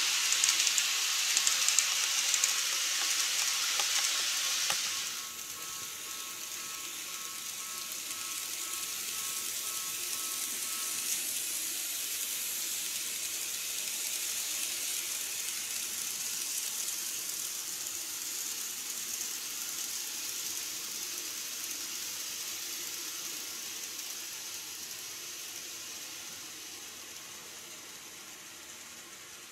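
KATO model train running on its track: a loud, even hiss of wheels and motor, which drops off suddenly about five seconds in. A softer running hiss follows, with a faint steady whine for a few seconds. It swells a little as a train passes and then fades slowly as it runs away.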